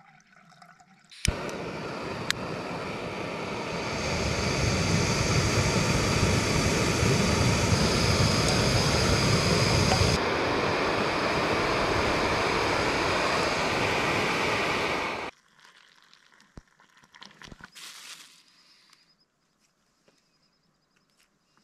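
Canister gas camping stove burner hissing steadily under a pot of water being heated for cooking. It starts with a sharp click about a second in and stops abruptly after about fourteen seconds, followed by a few faint small sounds.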